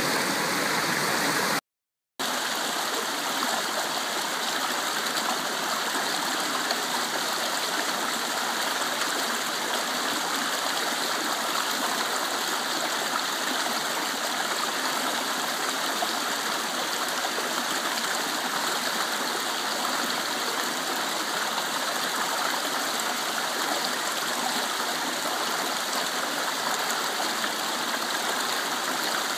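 Shallow rocky stream rushing over stones, a steady even rush of water. The sound cuts out completely for about half a second around two seconds in.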